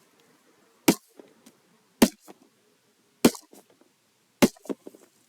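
Hammer blows on a cardboard target: four sharp strikes, evenly spaced about a second apart, each followed by a few faint knocks.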